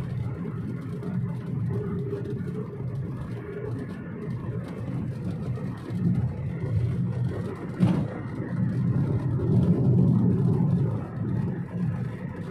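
Motor vehicle running steadily, a low engine and road rumble that swells and eases, with a short knock about eight seconds in.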